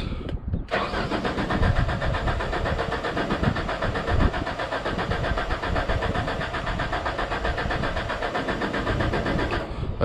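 A 2001 Genie S60 boom lift's engine cranks on its starter for about nine seconds without firing: a crank-no-start.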